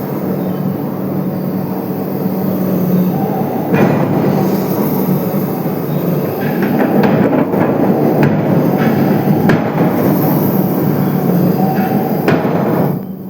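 Forging press running after a restart, with loud, dense mechanical clatter and a steady hum. Several sharp knocks cut through, about four seconds in, twice around eight to nine and a half seconds, and again near the end.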